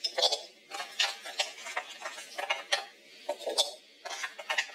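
Cardboard jigsaw puzzle pieces clicking and tapping against one another and the board as a handful is dropped and spread out: an irregular run of small sharp clicks, several a second.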